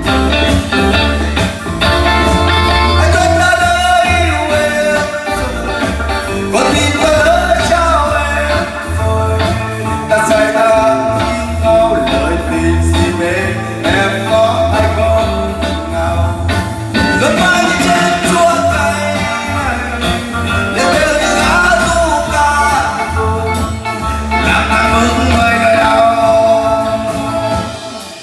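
Live band music: an instrumental passage with a bending melodic lead line over a steady bass and accompaniment.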